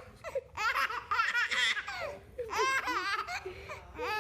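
A baby laughing in high-pitched squealing bursts, three of them, the last one brief.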